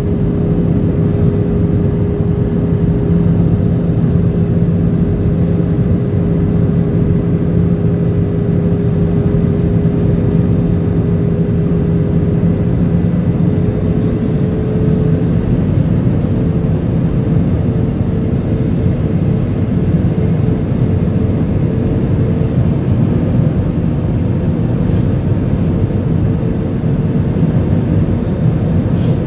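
Airliner cabin noise during descent: the steady drone of the jet engines and rushing air. A steady hum runs through it and shifts slightly higher in pitch about halfway through.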